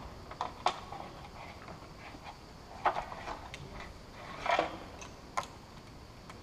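Scattered light clicks and knocks, with a short scrape about four and a half seconds in, from a towbar wiring cable being handled and fed through a hole in a car's rear body panel.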